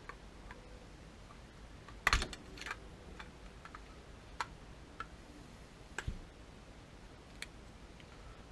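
Scattered clicks and knocks from handling a small battery-powered spark igniter box: a loud cluster about two seconds in, then single clicks every second or so.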